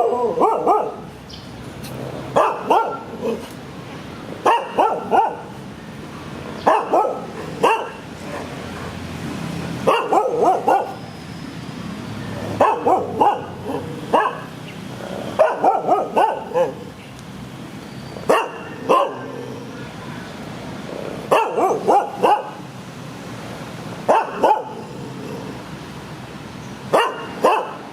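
A dog barking in repeated bouts of two or three barks, a fresh bout about every two to three seconds.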